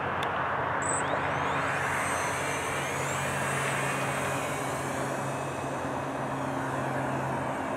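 Electric motor and propeller of a foam RC flying wing, whining as the plane is hand-launched; the pitch rises about a second in as the throttle comes up, then holds steady as it flies.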